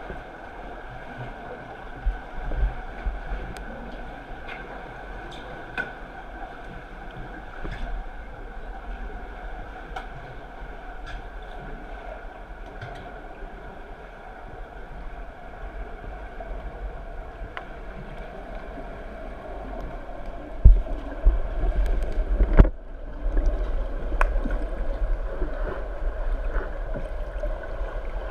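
Muffled underwater pool ambience heard through a camera's waterproof housing: a steady hum with scattered faint clicks and water gurgles. About three quarters of the way in come several loud low thumps and rumbles.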